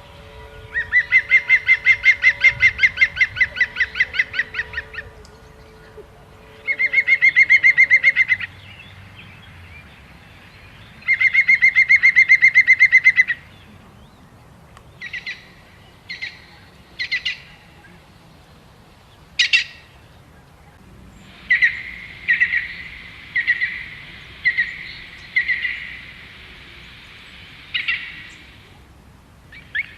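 A bird calling in loud, fast trills, three long bursts a few seconds apart. These are followed by scattered single short calls and then a run of spaced calls near the end.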